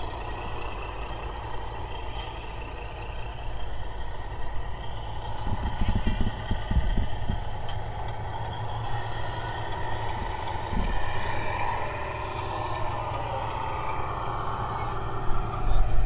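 Diesel truck engine sound from a 1/14-scale RC semi truck's sound unit, running steadily. Its pitch shifts upward about two-thirds of the way through.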